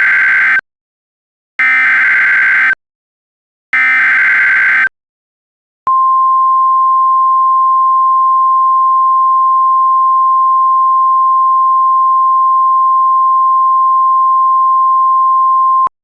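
Emergency Alert System SAME header: three raspy data bursts of about a second each, the first already under way, with a second of silence between them. Then the NOAA Weather Radio 1050 Hz warning alarm tone holds steady for about ten seconds and cuts off sharply. The header is coded as a coastal flood warning.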